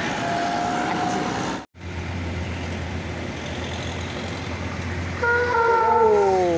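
Heavy traffic, then a bus engine idling with a steady low hum. About five seconds in, a bus horn sounds several tones together, holds briefly, then slides down in pitch.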